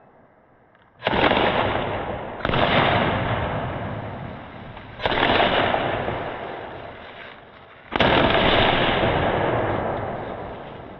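Aerial shells from a 60-shot skyshot firework cake bursting, heard slowed down in slow motion: four deep booms, one to three seconds apart, each dying away slowly.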